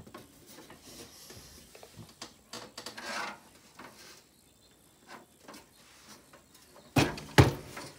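Hands handling a desktop computer case and its hard drive cage: scattered rubbing and scraping, with two sharp knocks less than half a second apart near the end.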